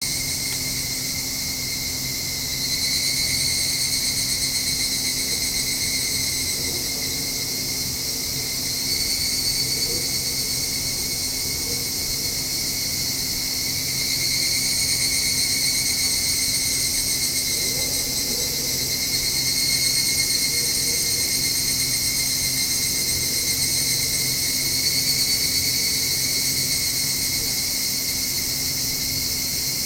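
Higurashi (evening cicadas, Tanna japonensis) calling in a dense, high-pitched chorus, with calls swelling louder every few seconds as new bouts start. A steady low hum runs underneath.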